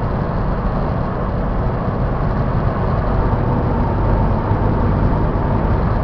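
Steady in-cab road noise of a 2002 Toyota Tacoma pickup driving at speed: a low rumble of engine, tyres and wind, with a faint steady hum.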